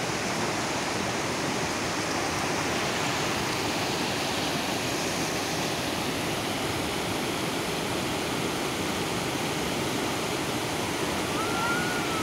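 Shallow, fast mountain river rushing over rocks in white-water rapids, a steady unbroken roar of water.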